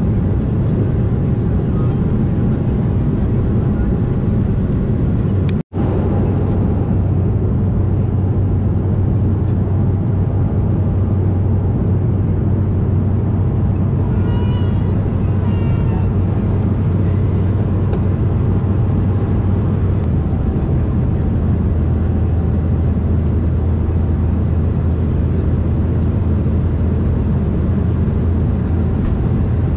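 Steady cabin noise inside an Embraer E190 airliner: a low, even rumble of its turbofan engines and rushing air, with a faint steady hum over it. The sound drops out for an instant about six seconds in.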